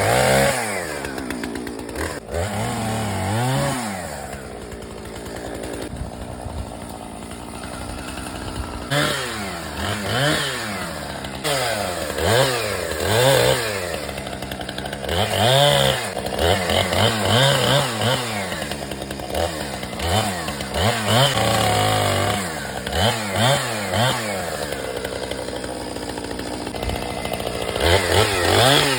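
Chainsaw revving up and dropping back again and again, with short bursts of throttle as brush and small growth are cut to clear an area.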